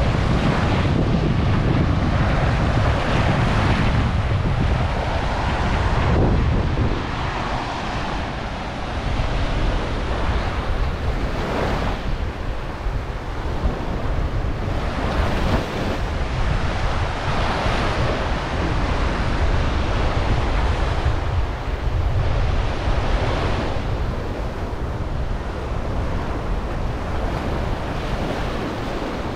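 Ocean surf washing onto the beach, the noise of the breaking waves swelling every few seconds. Wind buffets the microphone with a low rumble, heaviest in the first several seconds.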